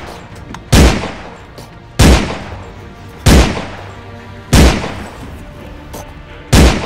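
Five loud gunshot sound effects, spaced roughly a second and a quarter apart with a longer gap before the last, each with a long echoing tail.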